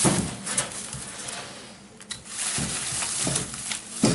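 Firewood logs being handled and laid in a fireplace: a few wooden knocks, with rustling in between from about halfway through.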